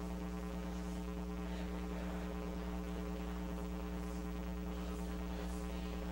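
Steady electrical mains hum, with faint rhythmic hand-clapping from a congregation beneath it.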